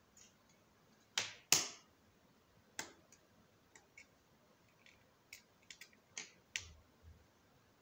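Sharp clicks and taps of metal tweezers and small parts against the frame of an opened Oukitel WP6 rugged phone: two loud clicks just over a second in, another near three seconds, then scattered lighter clicks.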